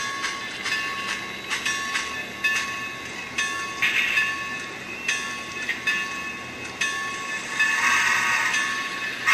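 Tsunami digital sound decoder in a model 2-6-6-0 steam locomotive, playing steam-engine sounds through its small onboard speaker. A constant hiss with steady tones is broken by sharp knocks roughly once a second, with stronger bursts of steam hiss about four and eight seconds in.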